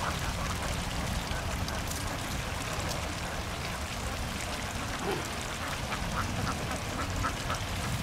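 A flock of domestic laying ducks quacking, with a quick run of short quacks in the second half, over a steady hiss of background noise.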